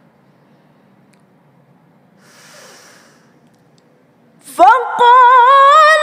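A woman's breath is drawn in audibly at the microphone about two seconds into a pause in her Quran recitation. At about four and a half seconds she starts a loud, long melodic tilawah phrase, the sustained notes wavering with vibrato.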